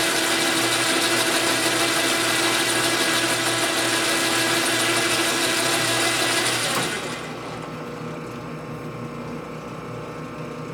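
Jet metal lathe running while turning a part: a steady hiss with whining gear and motor tones, which drops off sharply about seven seconds in as the lathe is stopped, leaving a quieter hum.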